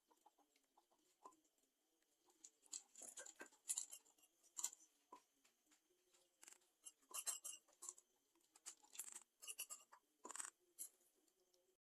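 Faint scattered clicks, taps and scrapes of utensils and containers being handled during food preparation, over a faint low hum.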